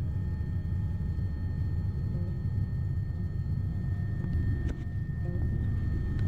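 Bell 407 helicopter in flight, heard from inside the cabin: a steady deep rumble of rotor and turbine with a faint constant high whine above it.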